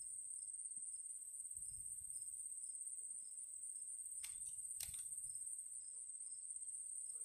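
Faint, steady, high-pitched drone of insects in the grass. About four seconds in come two faint sharp clicks, half a second apart.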